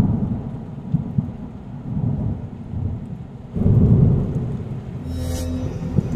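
Rolling thunder rumbling, with a louder roll swelling about three and a half seconds in, over a hiss of rain. A short sharp hiss sounds a little after five seconds.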